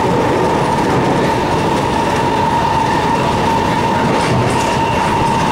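SMRT R151 (Alstom Movia) train running at speed, heard from inside the passenger car: a steady rumble of wheels on rail with a steady whine held at one pitch.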